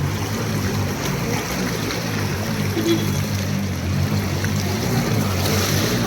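Steady rush of rain and running floodwater, with the low, even hum of a vehicle engine running under it.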